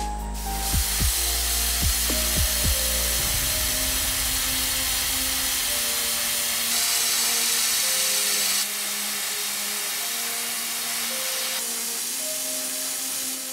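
Gravity-feed airbrush spraying paint: a steady hiss of air and paint from the nozzle that starts about half a second in and is a little louder for about two seconds past the middle. Background electronic music plays along.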